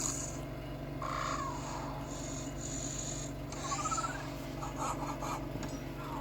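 Electronic robot sound effects: short beeps and a quick run of rising chirps about four seconds in, over a steady mechanical hum with some scraping noise.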